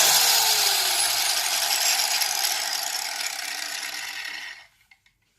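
A 100 mm, 850 W electric angle grinder, switched off, spinning down: its whine falls in pitch and fades over about four and a half seconds, then stops.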